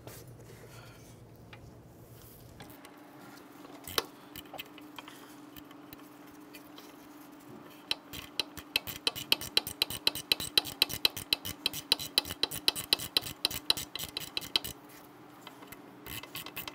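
Hand ratchet clicking rapidly, about five clicks a second, as it runs the bolts of a new rear wheel hub bearing assembly in against growing resistance. A single knock comes about four seconds in, under a faint steady hum.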